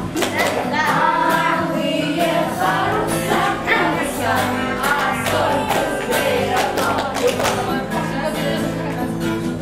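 A group of children singing a song together to a strummed acoustic guitar.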